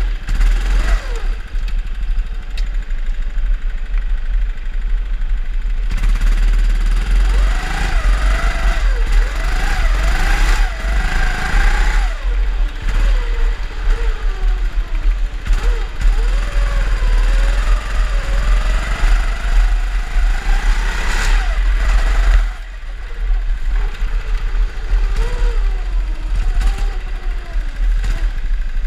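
Drift kart's motor running and revving up and down as it is driven, its pitch rising and falling every second or two, with a brief drop in level about 22 seconds in.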